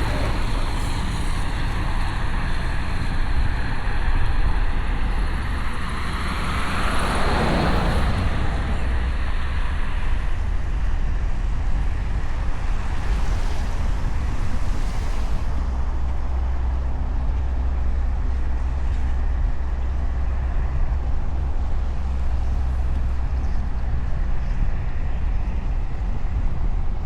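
Road and engine noise inside a moving vehicle: a steady low rumble with tyre hiss, swelling louder briefly about seven seconds in and again around fourteen seconds.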